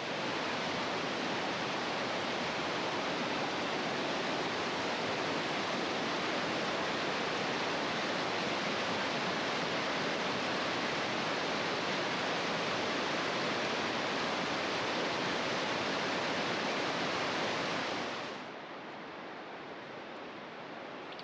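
Steady rush of falling water from Njupeskär, a 93-metre waterfall. About 18 seconds in it drops abruptly to a quieter, duller hiss.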